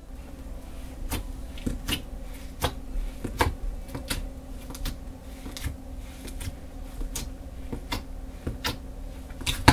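Fingers poking glitter-covered clear slime, making a dozen or so short sharp clicking pops at uneven intervals.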